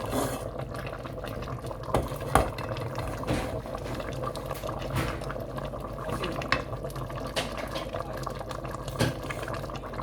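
Pot of egusi soup stock bubbling on the boil, with a spoon knocking against the pot several times, the loudest knocks about two seconds in, as lumps of microwaved egusi are added.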